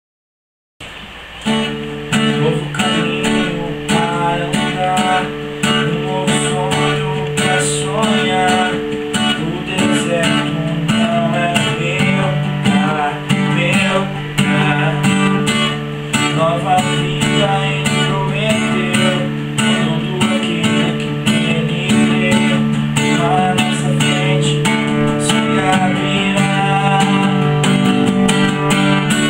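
Music on acoustic guitar, strummed and plucked over held low notes, starting about a second in and running steadily.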